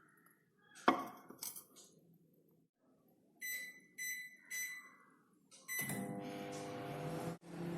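Microwave oven door shut with a clack, then three short keypad beeps about half a second apart. A fourth beep comes as the oven starts, and it settles into a steady running hum.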